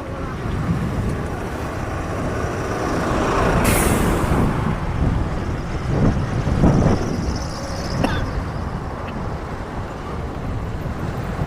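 Road traffic with heavy vehicles passing, swelling and fading, with a short sharp hiss about four seconds in.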